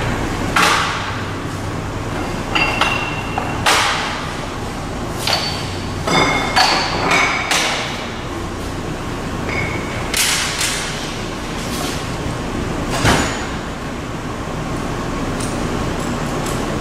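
Sheet-metal blanks knocked and slid against the steel bed and clamping beam of a sheet-metal folding machine: a dozen or so scattered clanks and clinks, several leaving a short metallic ring, over a steady low hum.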